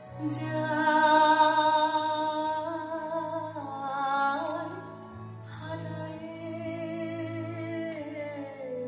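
Live Bengali song performance with harmonium and keyboard: the melody moves in long, wavering held notes over a steady low drone.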